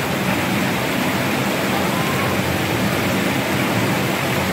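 Steady rush of water pouring through a simulated desert flash flood exhibit, a loud, unbroken roar of falling and flowing water.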